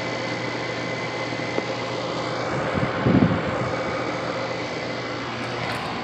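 Older Carrier air conditioner's outdoor unit running in straight cooling: a loud, steady compressor hum under a wash of noise, with a brief louder swell about three seconds in. The compressor is noisy enough to vibrate the ground, and the change in its running comes from its low-ambient kit, not from a defrost cycle.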